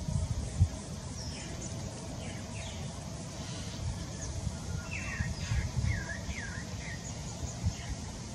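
Birds chirping, with several short falling peeps about five to six and a half seconds in, over a steady low outdoor rumble with a few soft thumps.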